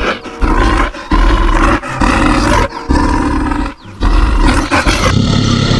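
Bear roar sound effect: a run of loud, rough roars with short breaks between them.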